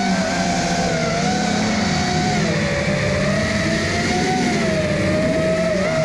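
FPV quadcopter's brushless motors and propellers whining steadily, the pitch wavering up and down as the throttle changes, over a low rushing noise.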